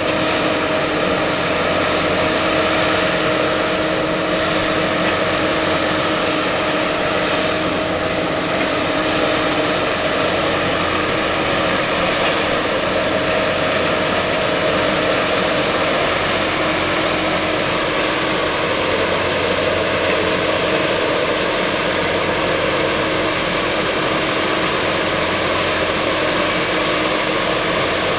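Engine of a Kershaw rail-mounted tie handler running steadily, with a steady humming tone over it.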